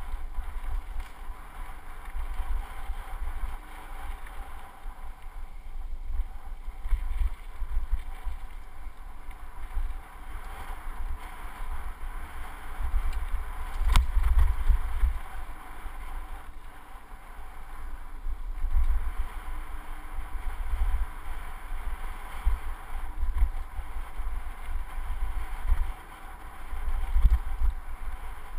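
Wind buffeting the microphone of a handlebar-mounted action camera on a mountain bike descending a dirt singletrack, an uneven low rumble that swells and fades, over the steady rolling hiss of the bike. One sharp knock comes about halfway through.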